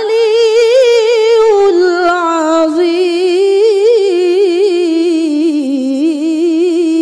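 A woman's solo voice drawing out a long, ornamented melodic line with a quick vibrato in the style of Qur'anic tilawah, the sustained close of the recitation. The pitch lifts at the start and sinks slowly through the phrase.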